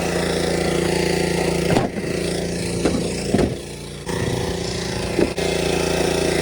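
A vehicle engine running steadily at a constant pitch while riding, with a few brief knocks and jolts about midway.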